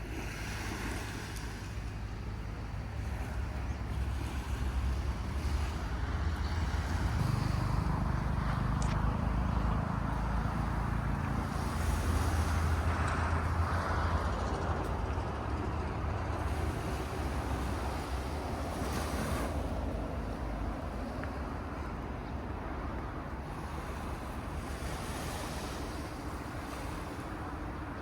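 Sea waves breaking and washing on the shore, swelling louder about a third of the way in and easing off, with wind rumbling on the microphone.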